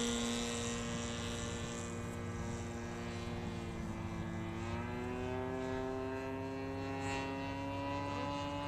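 A 106-inch Hangar 9 Piper Cub radio-control model airplane in flight, its motor and propeller droning steadily. The pitch sags slightly, then rises and holds higher about halfway through.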